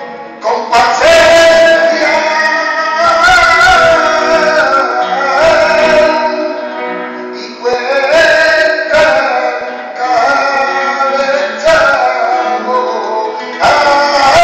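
Live flamenco-style performance: a man sings long, wavering, ornamented lines over acoustic guitar, with sharp strikes every second or two.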